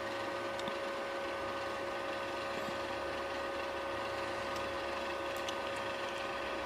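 Steady machine hum made of several steady tones over a low even noise, with a few faint light clicks of small parts being handled.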